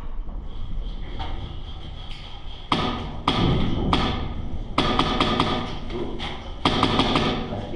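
Airsoft rifle firing: three single shots about a second apart, then a quick string of about four, another single, and a second quick string of about four near the end.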